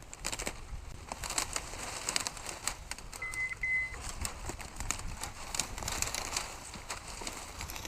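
Dry brush and twigs crackling and snapping underfoot as someone walks through cover. Two short high beeps come a little after three seconds in.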